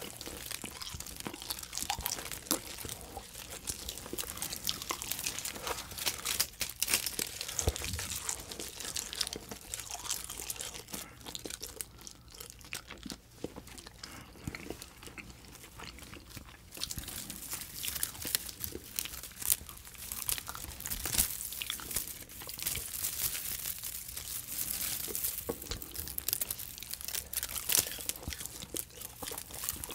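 Close-miked ASMR eating sounds: chewing and crinkling strips of clear edible tape, a starch (oblate) film, with dense wet crackles and mouth clicks. It goes quieter for a few seconds in the middle, then picks up again.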